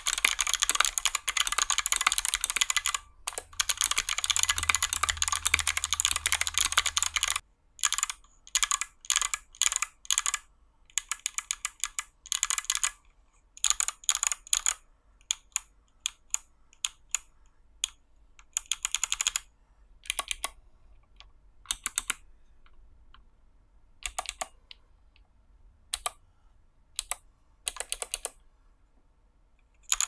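Typing on a 60% hot-swap mechanical keyboard fitted with Kailh Box Jade clicky switches, each keystroke a sharp, loud click. It is a fast, unbroken stream for the first seven seconds or so, then short bursts of keypresses with pauses between them. The stabilizers are lubed, so the long keys give no rattle under the clicks.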